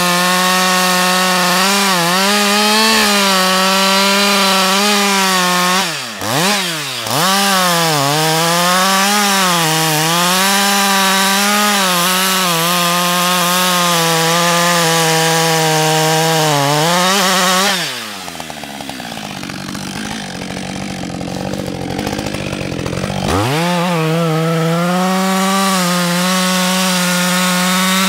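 Husqvarna 562 XP two-stroke chainsaw cutting wood at full throttle, its engine note wavering under load. It dips twice briefly about six seconds in. After the middle it drops to idle for about five seconds, then revs back up and cuts again.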